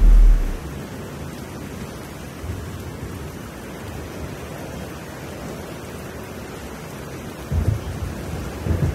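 Instrumental electronic beat music thinning out to a steady rain-like hiss of noise. A deep bass hit sounds at the very start, and two more low thumps come near the end.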